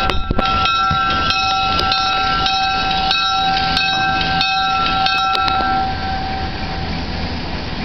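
Diesel locomotive's bell ringing, struck about one and a half times a second with each ring carrying into the next. It stops about five and a half seconds in, leaving the locomotive's low engine rumble.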